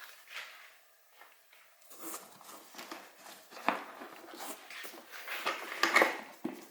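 Scattered clicks, knocks and rustling of hands and tools working on dirt-bike plastics and parts during disassembly, with a sharp knock about halfway through and a louder flurry near the end.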